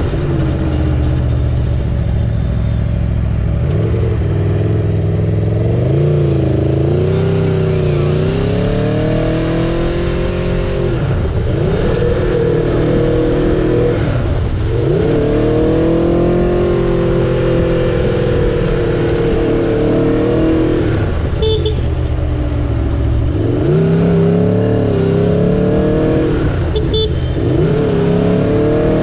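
Aprilia Tuono V4 Factory's V4 engine heard onboard, pulling up through the revs and falling back again and again, with the revs dropping sharply several times as the throttle is closed.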